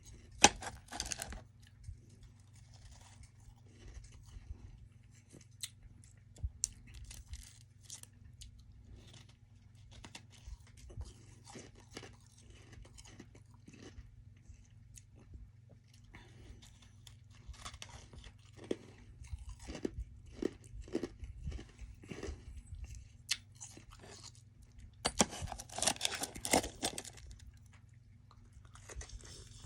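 Close-up chewing and crunching of soft freezer frost ice, in irregular bites with a dense run of crunching about 25 seconds in. A steady low hum sits underneath.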